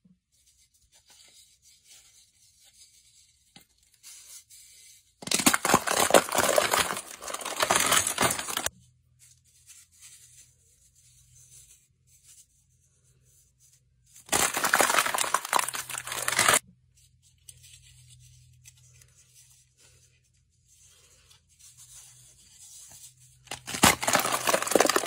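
Hardened white shell on a ball of slime crackling and crunching as hands squeeze and crack it, in three loud bursts several seconds apart with faint crackling between.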